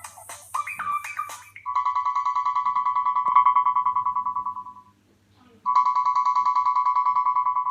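Samsung Galaxy Y built-in ringtone: a rapidly pulsing electronic trill held at one pitch, like a telephone bell, ringing for about three seconds, pausing briefly, then ringing again. It opens with the last few quick notes of the previous ringtone's tune.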